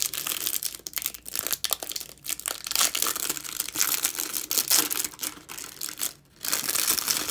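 The clear plastic wrapper of a soccer trading-card pack is torn open and crinkled by hand. It makes a dense crackling of many small snaps, with a brief pause about six seconds in.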